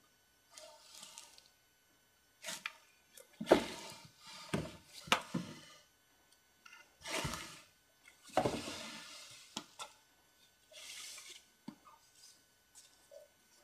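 Rummaging in a wooden wardrobe: a drawer and a box being slid and moved, with a few sharp knocks and short rustling, scraping swells in irregular bursts.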